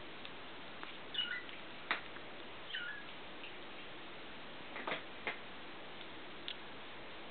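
Very young kittens giving a few short, high, squeaky mews, with a handful of soft clicks over a steady hiss.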